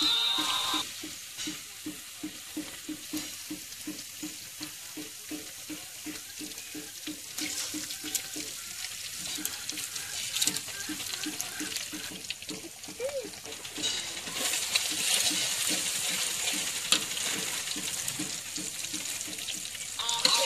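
Eggs frying in hot oil with onions and chillies in a black karai, sizzling, with a metal spatula scraping and clicking against the pan as they are stirred. The sizzle grows louder about two-thirds of the way in.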